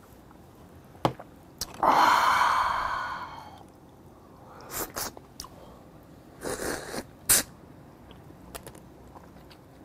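A long, loud breathy exhale right after a shot of soju, fading away over about a second and a half. Then a few scattered clicks and short slurps from chopsticks working on a steamed blue crab and sucking at the shell.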